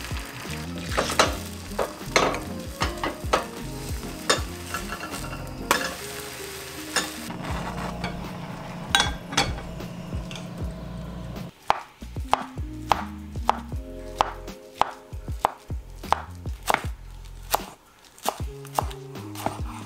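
A few clinks of cookware in the first half, then a knife chopping green onions on a wooden cutting board: a quick, uneven run of sharp knocks through the second half.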